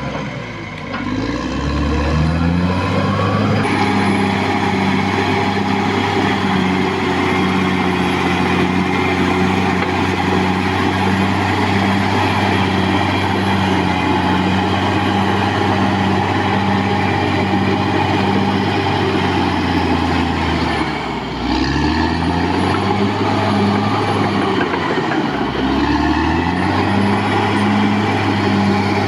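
Caterpillar D6R XL bulldozer's diesel engine running steadily under load. Its pitch sags and recovers near the start and twice more in the last third as the engine is pulled down and picks up again, with a faint high whine above.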